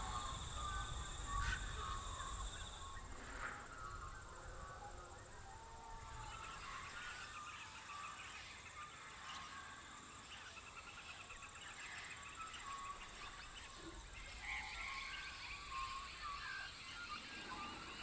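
Birds chirping and warbling over a steady high insect drone.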